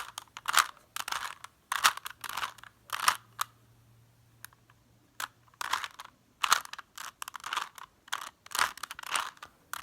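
Plastic Rubik's cube being twisted in quick bursts, its layers clicking and rattling as they turn, with a pause of about two seconds in the middle. By its owner's account the cube is poor at corner cutting.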